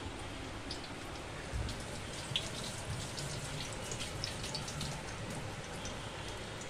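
Hot oil sizzling and crackling as breadcrumb- and egg-coated chicken cutlets shallow-fry in a flat pan, with a few sharper pops in the first half.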